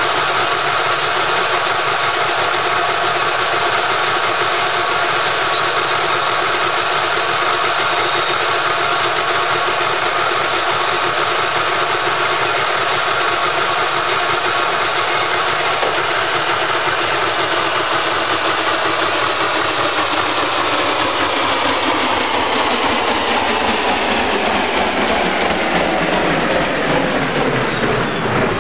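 Metal lathe's motor and headstock gears running with a steady whine of several tones. About halfway through, the whole sound drops steadily in pitch as the spindle slows down.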